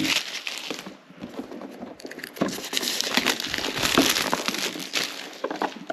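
Wrapping being pulled and torn off a product box, crinkling and crackling with many small clicks; it eases off for about a second near the start, then picks up again.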